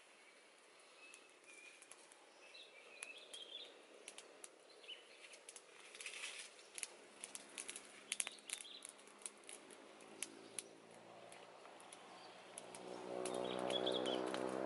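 Small wood fire crackling with scattered sharp pops, and birds chirping faintly. Near the end a low droning hum swells and becomes the loudest sound.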